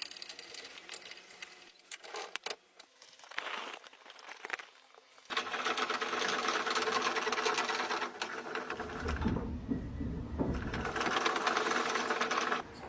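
Scattered clicks and knocks, then a small machine running steadily from about five seconds in, with a low rumble partway through; it cuts off suddenly near the end.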